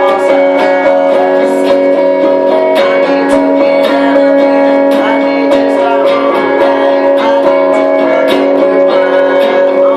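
Guitar being played: a quick run of plucked and strummed notes over ringing chords, going on without a break.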